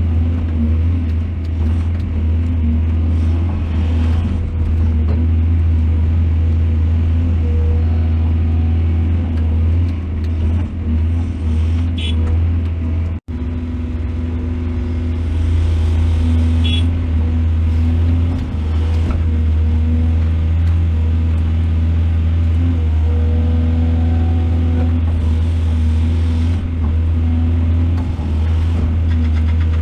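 Large excavator's diesel engine running steadily with a deep, even drone. The sound breaks off for an instant about 13 seconds in.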